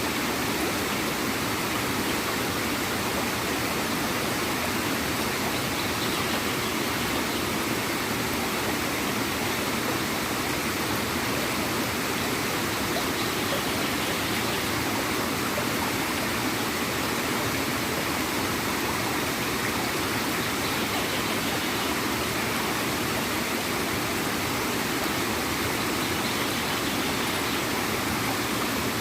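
Small waterfall and stream water flowing and gurgling steadily, an even rushing with no breaks.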